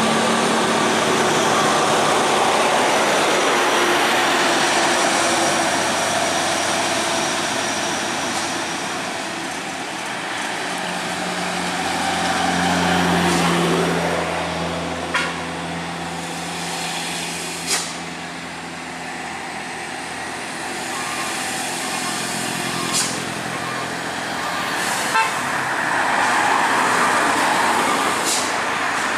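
Roadside traffic: trucks, cars and motorcycles passing one after another, with a heavy truck's engine swelling as it goes by near the middle. In the second half a few short sharp clicks stand out, along with a quick run of short beeps.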